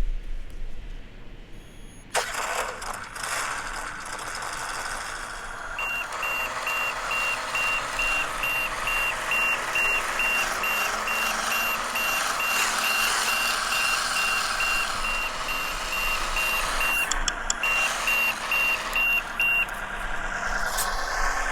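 RC construction vehicle's sound module playing a truck engine that starts up about two seconds in, then a high reversing beeper sounding about twice a second while the vehicle backs up, with a couple of short breaks in the beeping near the end.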